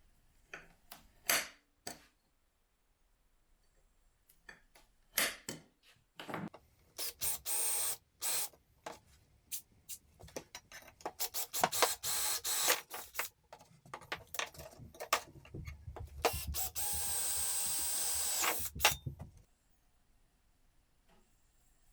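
A handheld power tool runs in short spells, the last and longest lasting about three seconds, among knocks and clatter of tools and parts being handled.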